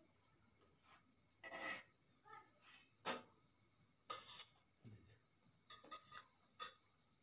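Faint, scattered clicks and short scrapes of a metal spatula working on a pan over a clay wood-fired stove. The sharpest click comes about three seconds in, with another near the end.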